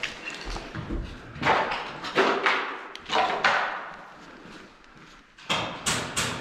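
Sharp knocks and thuds echoing in a bare room: single hits about a second and a half, two and three seconds in, then a quick run of three near the end.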